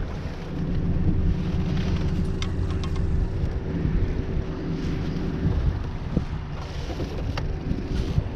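Motorboat's outboard motor running steadily under way, with wind buffeting the microphone.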